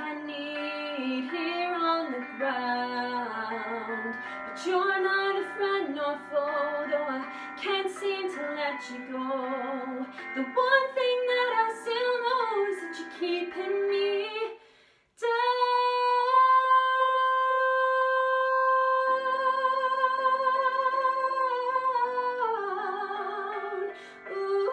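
A young woman singing solo over backing music, with a flowing, ornamented vocal line. After a brief break about two-thirds of the way in, she holds one long note with vibrato, then steps down near the end.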